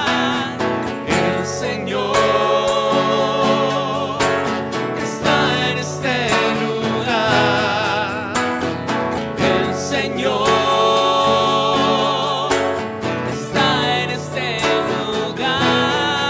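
Worship music: a singing voice with vibrato over guitar accompaniment.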